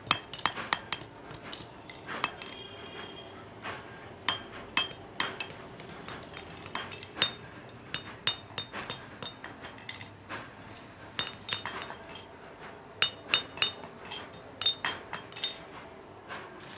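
Rusty steel chain rings clinking against one another and against a metal bar rack as they are picked up and stacked one by one: many short, sharp metallic clinks at irregular spacing, each with a brief ring.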